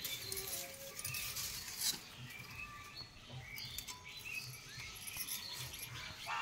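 Dry twigs and straw rustling and crackling as they are handled, with small birds chirping in short calls in the background.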